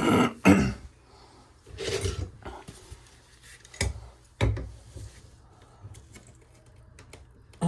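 Metal scraping, clinking and a couple of sharp knocks as hand tools work on a tight threaded plumbing fitting, trying to unscrew it. The loudest scrape comes right at the start, with two sharp knocks about four seconds in.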